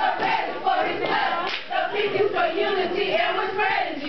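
A group of women chanting a sing-song verse in unison, their voices gliding and holding notes together.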